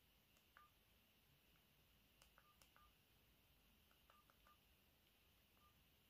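Faint key presses on a BLT V998 mobile phone's keypad, about eight in irregular clusters, each a soft click, most followed by a short single-pitch key beep.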